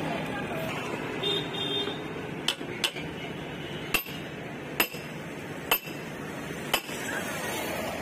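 A hand hammer striking metal at the rim of a motorcycle alloy wheel, knocking the old tyre's bead loose for removal. Six sharp metallic clinks come roughly a second apart, starting about two and a half seconds in, the first two close together.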